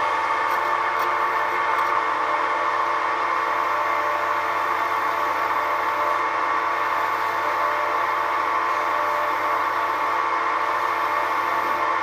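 Parting tool cutting into a spinning teak blank on a Record CL1 wood lathe, a steady whistle-like squeal.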